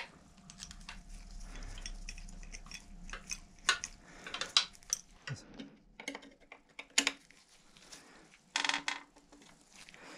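Metal clicks and taps of an Allen key turning and loosening the mounting bolt of a bicycle's hydraulic disc brake caliper, with a handful of sharp clicks spread through and a brief rattle near the end.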